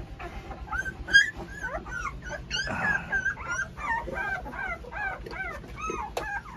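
Thirteen-day-old Presa Canario (Canary mastiff) puppies whimpering and squealing. The cries are short and rise then fall, one after another, about two or three a second. There is a brief scuffling noise about three seconds in, as one puppy is grabbed by the scruff.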